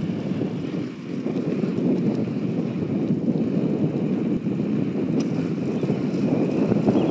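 Wind buffeting the microphone over a steady rumble of wheels rolling on asphalt, heard from a camera moving quickly along a street.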